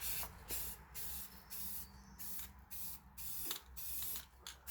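Aerosol can of gloss spray paint being sprayed in a quick series of short hissing bursts, about two a second.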